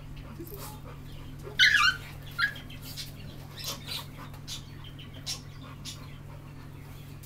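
A dog gives a short, high, wavering whine about one and a half seconds in, then a briefer one a moment later, with faint scattered clicks in between.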